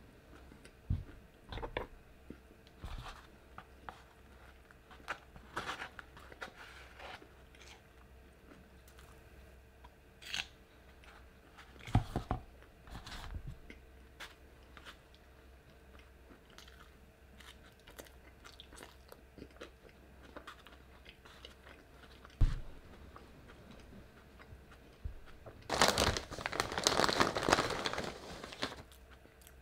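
A person biting and chewing crunchy fried food: scattered crunches and chewing sounds, then a few seconds of loud, dense crunching near the end.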